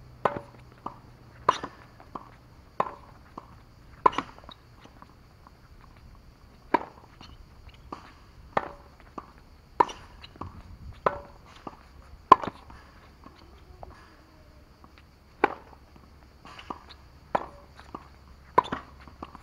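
Tennis rally on a hard court: sharp pops of racket strings striking the ball and the ball bouncing, about one every second and a quarter, with a pause about two-thirds of the way through.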